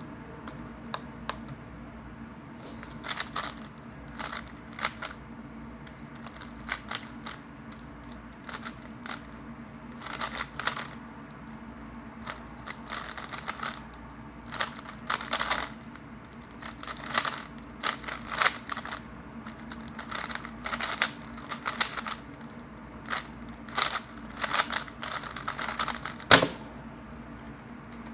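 3x3 Rubik's cube being turned fast in a speedsolve: rapid plastic clicking and rattling of the layers in quick bursts with short pauses between them. Near the end comes one sharp, louder knock.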